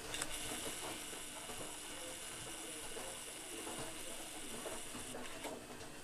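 Small camera zoom motor whirring as the lens zooms out, with a click when it starts just after the beginning and another when it stops about five seconds in, over faint outdoor background noise.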